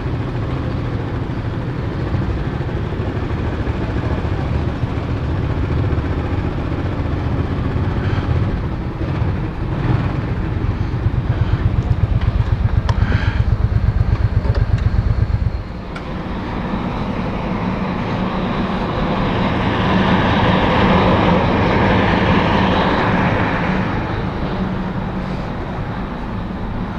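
Mirage 250 custom motorcycle's V-twin engine running at low speed with a steady pulsing beat, growing louder, then switched off abruptly about fifteen seconds in. A steady rushing noise follows.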